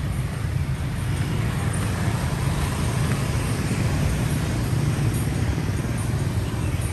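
Busy street traffic made up mostly of motor scooters and motorbikes running and riding past: a steady mix of small engines and road noise.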